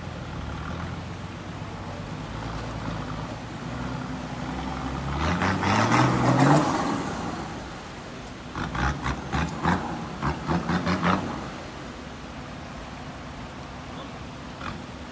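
Nissan Patrol 4x4 engine running as it drives through a shallow river, revving up about five seconds in, then a quick series of pulses around the middle, with water splashing around the wheels.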